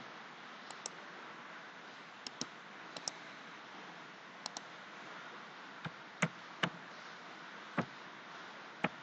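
Faint, scattered clicks of a computer mouse and keyboard while an equation is entered, some in quick pairs early on and louder single clicks in the second half, over a steady low hiss.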